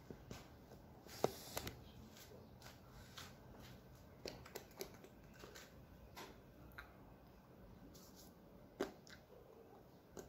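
Faint scattered clicks and light rustles over a low, steady background hiss, with a sharper tap about a second in and another near nine seconds: small movement noises of hands and clothing during signing.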